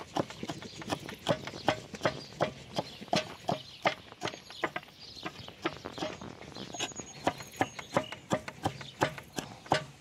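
Knife mincing garlic on a wooden cutting board: quick, uneven knocks of the blade against the board, about three or four a second.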